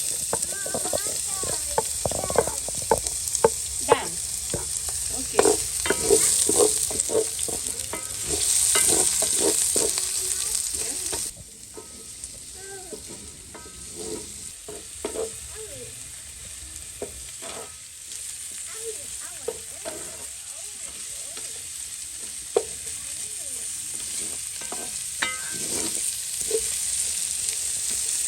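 Food frying in hot oil with a steady sizzle, while a utensil stirs and scrapes in the pan with many short clicks. About eleven seconds in the sizzle suddenly gets much quieter and then goes on at a lower level.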